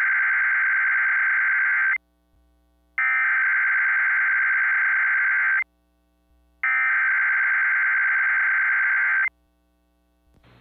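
Emergency Alert System SAME header: three bursts of shrill, warbling digital data tones, each about two and a half seconds long with a second's gap between them. The first burst is already under way at the start. This is the coded header that opens the alert.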